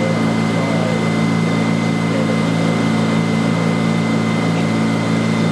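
Tender boat's engine running steadily under way, a constant low hum with a thin high whine, over the rush of water and wind.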